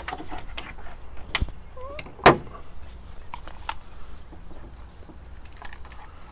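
Sharp clicks and knocks of VIC-1 intercom cables, connectors and a headset being handled, the loudest about two seconds in, followed by a few lighter ticks.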